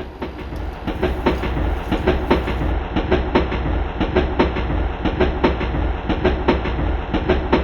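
A train running along the track, its wheels clacking in a steady rhythm over a low rumble.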